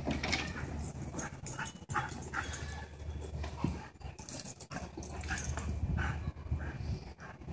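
Two huskies playing, panting and making short, irregular vocal noises.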